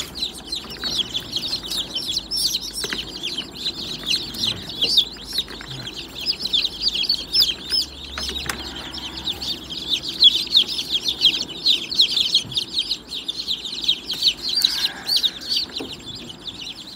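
Many newly hatched chicks peeping together in a dense, unbroken run of short, high, overlapping peeps.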